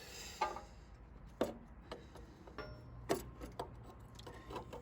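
A few sharp, separate clicks and knocks, about four, each ringing briefly: tools and metal parts being handled while a radiator hose is fitted on a tractor.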